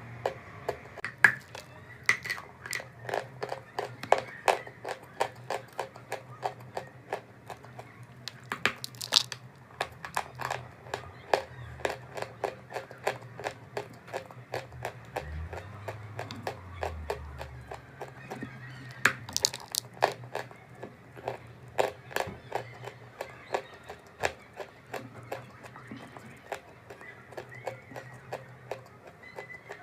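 Crunchy chalk being bitten and chewed close to the microphone: a continuous string of sharp, irregular crunches and cracks, a few each second.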